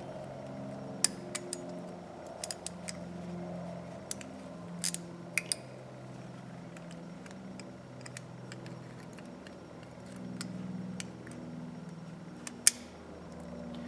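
Small metal tools clicking and scraping on the parts of a Craftsman 1/4-inch ratchet as a screwdriver pries off its small retaining spring ring. There are scattered sharp metal ticks, several in the first six seconds and one loud click near the end, over a steady low hum.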